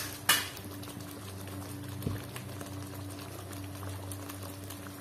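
Thick chili sambal simmering in a wok, bubbling over a low steady hum, with one sharp click about a third of a second in.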